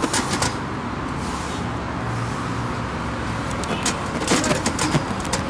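Plastic cling film pulled off a roll and stretched and crinkled over foam takeaway trays, crackling near the start and again from about four seconds in, over a steady low hum of road traffic.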